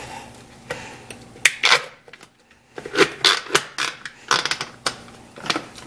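Plastic clicks and scrapes from handling a small manual food chopper packed with onion chunks, with a few sharp knocks scattered through and a short lull a little past the middle.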